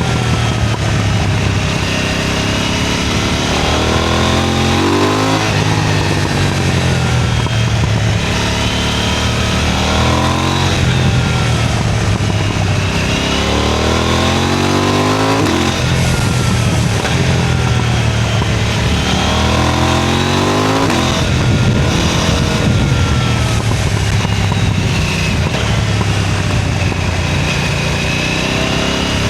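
KTM 990 Duke motorcycle's parallel-twin engine and exhaust under hard riding, revs climbing sharply four times and falling back between.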